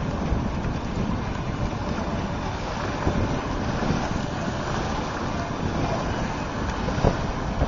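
Wind buffeting the microphone over water rushing and slapping along the hull of a Careel 18 sailboat under sail in a fresh breeze, a steady rushing noise throughout.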